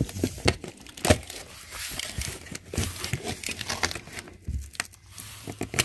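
Box cutter slicing through a cardboard box, with the cardboard scraping and crinkling and a few sharp knocks as the flaps are handled.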